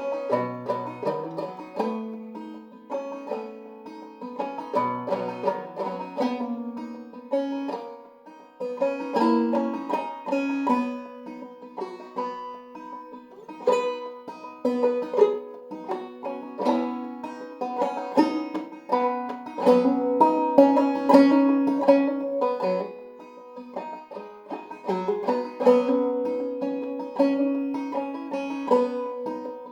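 Five-string banjo played clawhammer style in eCGCD tuning, a solo tune of brisk plucked notes with a steady rhythmic drive and ringing drone strings.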